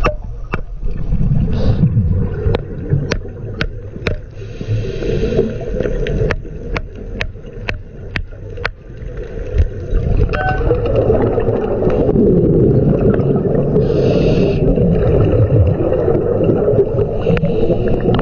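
Underwater sound around a scuba diver: a steady low rumbling and gurgling of exhaled bubbles, with two short hisses, one about four seconds in and one near fourteen seconds. A run of sharp clicks comes through the first half.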